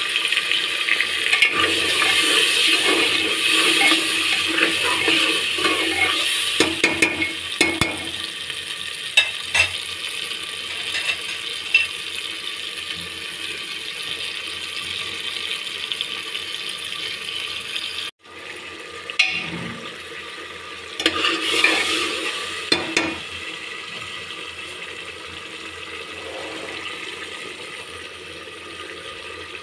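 Tomato purée sizzling and bubbling in hot oil and spices in an aluminium pressure cooker, the masala frying down. The sizzle is loudest at first and slowly dies away, with a few short knocks of a spoon against the pot.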